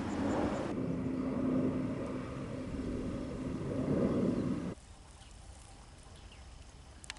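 Low rumble of an engine with a steady hum, cutting off suddenly about four and a half seconds in. Quieter outdoor ambience with faint high chirps follows, with a sharp click near the end.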